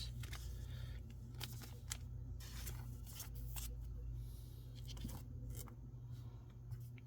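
Trading cards being handled: scattered light clicks and rustles of card stock and packaging, over a steady low hum.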